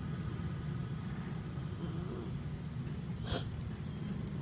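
Steady low background rumble, with one brief sharp sniff a little after three seconds in.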